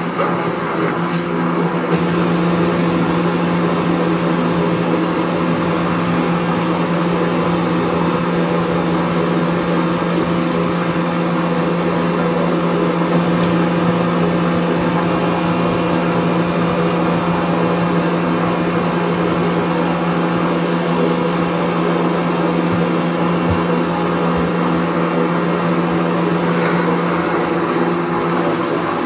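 High-pressure washer running steadily while jetting a drain pipe: a constant motor hum over a hiss, the hum growing stronger about two seconds in.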